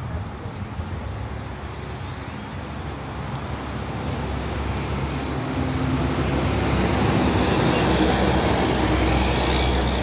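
A road vehicle passing, its engine and tyre noise building over several seconds and loudest near the end.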